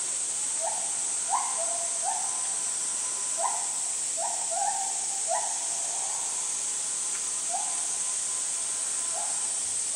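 An animal's short calls, about a dozen, repeated at irregular intervals over a steady high hiss.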